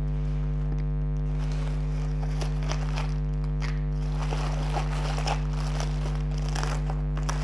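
Steady electrical hum made of several fixed tones, the loudest thing throughout, with faint rustling and crinkling of plastic packaging as items are pulled out of a bubble mailer.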